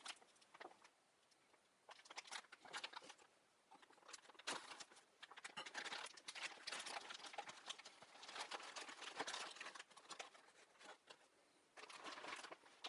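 Thin plastic bag of fresh noodles crinkling and rustling in irregular bursts as it is handled and opened, with a short lull near the start and another shortly before the end.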